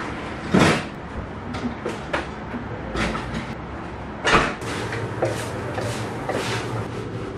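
Kitchen handling sounds: containers knocked and set down on refrigerator shelves, then the refrigerator door shut with a thump about four seconds in. Near the end come a few short hissing squirts from a trigger spray bottle of cleaner.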